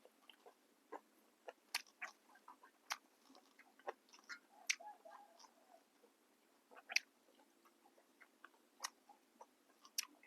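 Close-up chewing: scattered, irregular soft crunches and clicks of someone eating crisp raw vegetables with a spicy grilled-beef salad.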